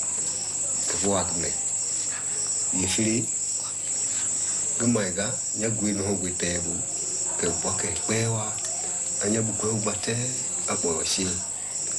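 Crickets chirping throughout: a steady high trill with a pulsed chirp repeating about twice a second, under a man talking in Mende.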